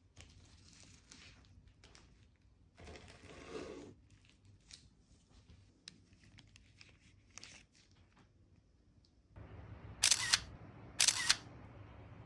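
A knife cutting through a Lotus biscuit cheesecake on a wooden board, followed by light handling taps as the bars are moved. Near the end a low room hum comes in, and there are two sharp clicks about a second apart.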